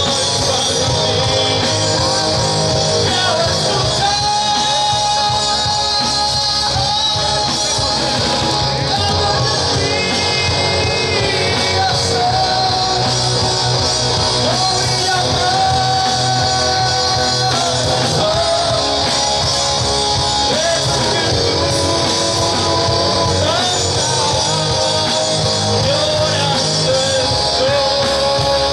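Live rock band playing at a steady volume: drum kit, electric guitars and bass guitar.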